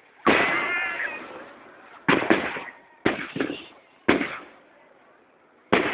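Aerial firework shells bursting overhead: a string of about six sharp bangs, the loudest about a quarter second in, then two close together around two seconds, two more around three seconds, one at four seconds and another near the end, each dying away over a second or so.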